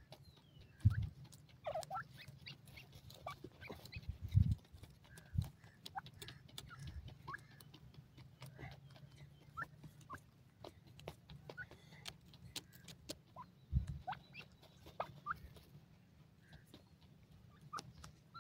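Young grey francolins (teetar) digging and pecking in dry, loose soil: scattered dry scratches and clicks, with soft short rising peeps now and then. A few low thumps stand out as the loudest sounds, about a second in, twice around four to five seconds, and once near fourteen seconds.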